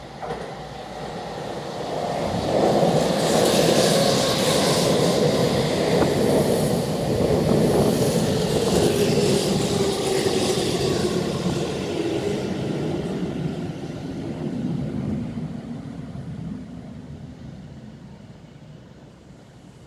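Tokyu 5000-series electric train running past close by on the rails, a steady rumble with a tone underneath that falls in pitch, fading out over the last few seconds.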